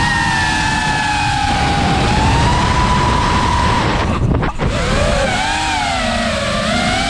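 FPV quadcopter's brushless motors and propellers whining, the pitch rising and falling with throttle over a steady rush of wind on the onboard camera's microphone. About four seconds in, the whine cuts out for about half a second, then comes back sweeping up and down.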